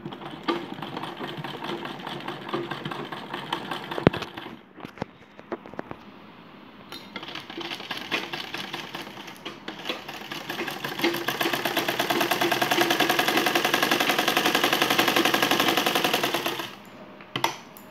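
Sewing machine stitching a zip onto cotton fabric: a fast, even clatter of needle strokes. It is lighter and uneven at first, eases off about five seconds in, then runs louder and steady from about eleven seconds in until it stops near the end.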